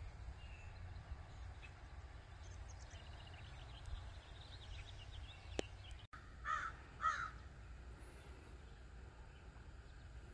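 A crow cawing twice, about half a second apart, a harsh call over a faint outdoor background with a few light bird chirps before it.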